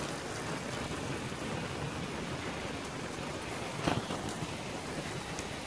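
Water pouring and splattering out of a Ford Ranger pickup onto the concrete ramp as the truck is hoisted from the water, a steady rain-like patter, with a single sharp knock about four seconds in.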